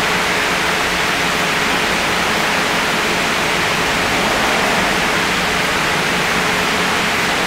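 A steady, even hiss with a faint steady hum underneath, holding the same level throughout.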